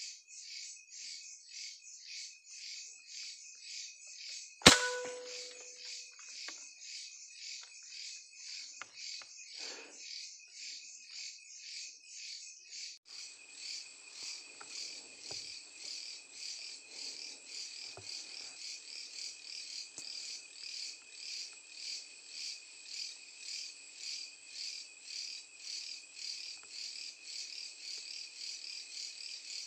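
Night insects, crickets, chirping steadily in a pulsing rhythm of about three pulses a second. About four and a half seconds in comes a single sharp gunshot, much the loudest sound, with a brief ringing tone after it.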